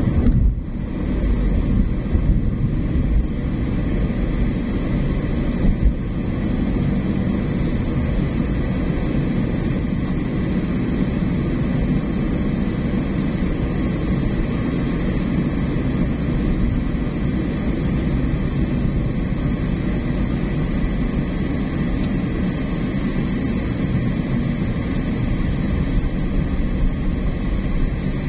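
Steady low rumble of road and engine noise from a car driving, with a brief bump about six seconds in.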